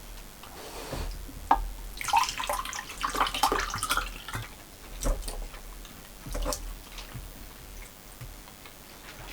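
Water splashing and dripping, thickest for a couple of seconds near the start, with a few scattered short clicks.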